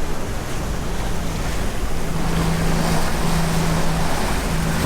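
Wind and sea noise on the deck of a sailing yacht under way, with wind buffeting the microphone. A steady low hum comes in about two seconds in.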